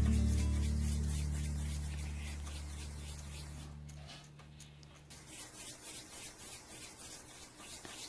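The last low note of a music track fades out over the first few seconds. Then soft rubbing, about two strokes a second, as hands roll pieces of sticky rye dough into balls on a floured countertop.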